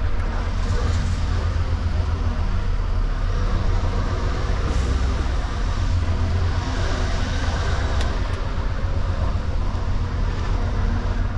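Scania S770's V8 diesel engine running steadily, a continuous low drone.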